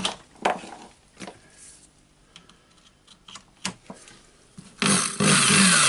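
A few handling clicks, then about five seconds in a Hilti SF4000 corded drywall screw gun's motor starts and runs loudly. This is a test run after its needle bearing was replaced, and the tool is working.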